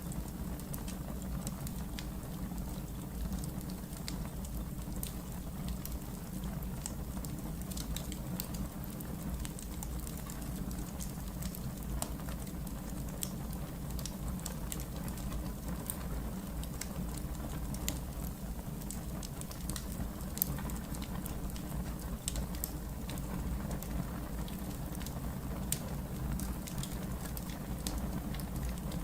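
Wood fire crackling in a fireplace: frequent small sharp pops and snaps over a low steady rumble of the flames.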